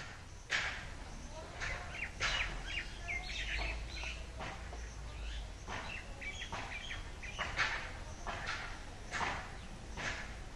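Hands and a digging tool scraping and scooping soil out of a hole dug in an earthen floor, in short irregular scratchy strokes. Birds chirp faintly in the background.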